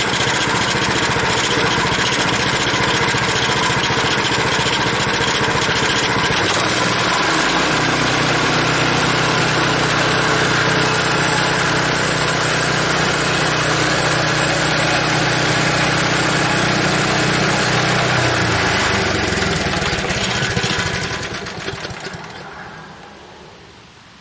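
Sawmill engine running steadily while boards are cut, with a deeper engine note from about seven seconds in. Near the end it slows and dies away.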